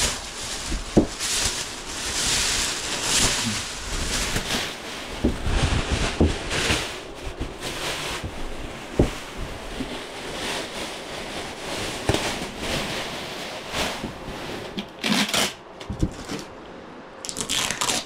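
Plastic wrapping crinkling and rustling in irregular handfuls as it is pulled off a new refrigerator, with a few light knocks.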